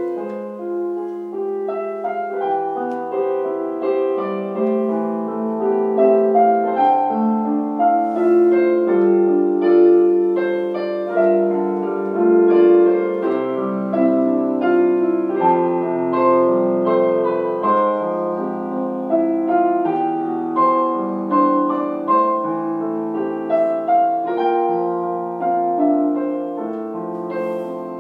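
Solo piano playing a calm, flowing piece, its notes ringing over one another.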